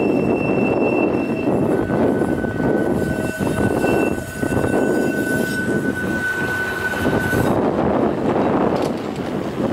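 Blackpool Balloon double-deck tram running past on a curve: a continuous rumble of wheels on rail, with a steady high squeal from the wheels on the curve from about two seconds in until near the end.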